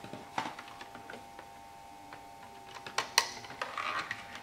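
Scattered plastic clicks and taps from handling an Ethernet cable and pushing its RJ45 plug into a socket, the loudest pair about three seconds in, over a faint steady whine.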